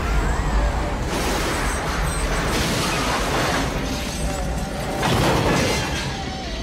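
Movie tornado sound effects: a dense, steady roar of wind with debris and metal clattering, creaking and crashing.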